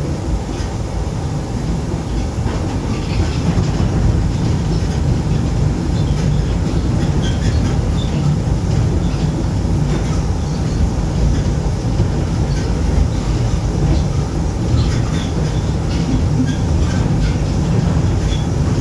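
Moscow monorail train heard from inside the car as it runs along its elevated beam: a steady low rumble with scattered small clicks and rattles.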